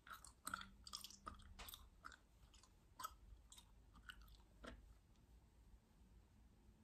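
Faint, close-miked gum chewing: irregular soft clicks and wet smacks of the gum, frequent in the first couple of seconds, then sparser and dying away near the end.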